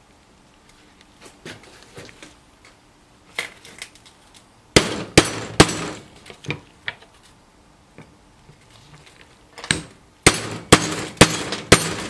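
Ball-peen hammer striking a large socket used as a driver to drive a seal into a forklift power steering cylinder part: three sharp metal strikes about five seconds in, then about five more near the end, with lighter clinks of handling between.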